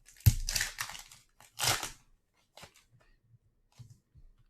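Foil trading-card pack being torn open and its wrapper crinkled: a sharp snap just after the start, crackling rips through the first two seconds with a louder crinkle near the end of them, then faint light rustling.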